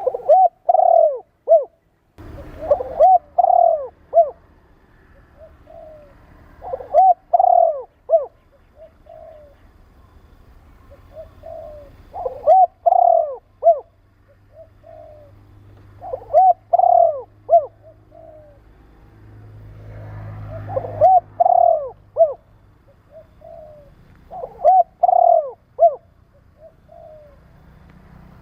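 Spotted dove cooing: seven loud phrases of a few short, arching coos each, repeated every few seconds.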